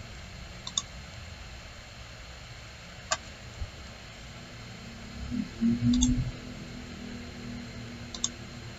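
Computer mouse clicking a few times, some as quick double clicks, over a steady room hiss. About two-thirds of the way through there is a brief, louder low hum.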